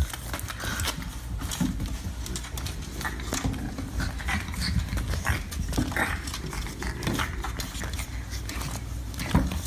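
French bulldog puppies playing, making short puppy noises in among scattered scuffling and clicking sounds.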